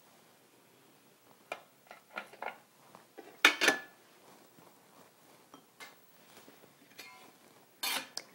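Quiet, scattered knocks and clinks of kitchen prep: a chef's knife and vegetables handled on a wooden cutting board beside glass prep bowls, the loudest a knock with a short ring about three and a half seconds in.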